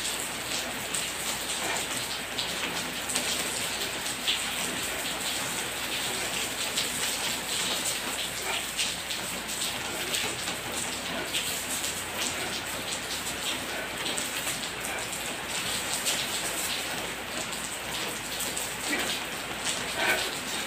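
Steady rain: an even hiss of falling water with a dense, irregular patter of drops.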